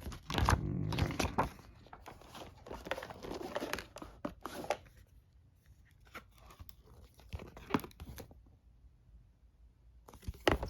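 Packaging being torn and crinkled by hand, a dense rustle for about five seconds, then scattered taps and clicks of handling, dying away near the end.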